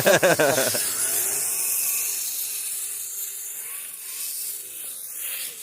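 Kyosho Blizzard RC snowcat driving through snowy footprints: its electric motor whines faintly and its tracks churn the snow with a steady hiss. The sound gradually fades.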